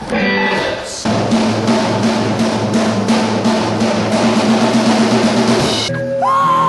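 Drum kit played in a fast, steady beat on snare and bass drum. Near the end the drumming stops and a held high tone comes in.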